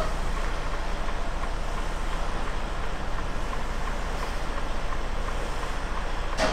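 Steady running noise of a Freightliner Cascadia semi truck, with a faint tick about twice a second and one sharp click near the end.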